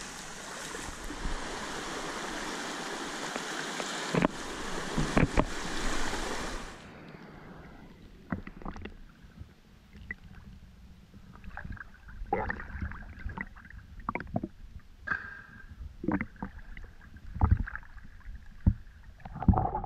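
Shallow river water running over the bed, a steady rush with a few knocks about four and five seconds in. From about seven seconds in it turns muffled: irregular splashing and sloshing of water at the surface against a half-submerged action camera while a snorkeler swims.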